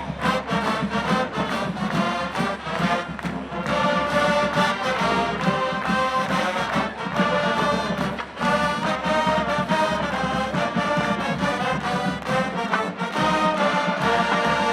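Marching band playing a brass-led tune over a steady drum beat.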